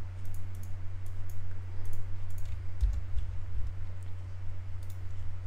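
Scattered computer mouse clicks and keyboard presses over a steady low electrical hum, with a couple of dull low thumps about three seconds in.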